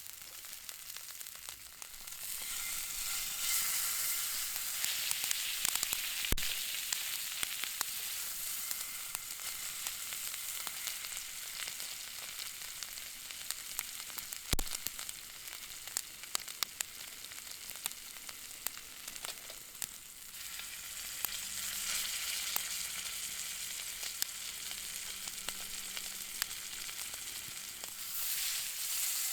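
Food sizzling in a Turk iron frying pan over a wood fire: a steady hiss that swells twice, with scattered sharp pops. Two dull knocks, about six seconds in and about halfway through.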